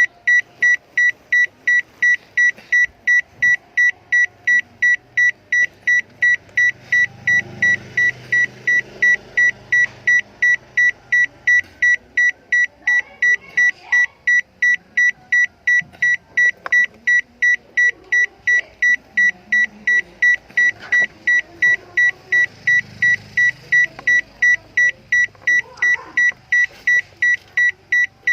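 Electronic alarm beeping rapidly and evenly, a little over two short high-pitched beeps a second, each on the same steady tone.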